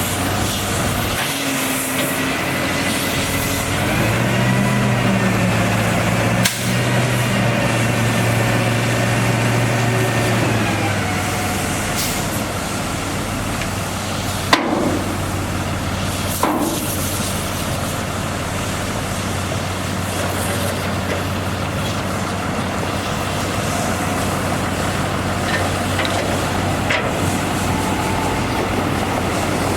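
Cummins B6.7L diesel engine of a dump truck running steadily. Its pitch rises a little about four seconds in and settles back around eleven seconds. A few sharp clicks come through near the middle.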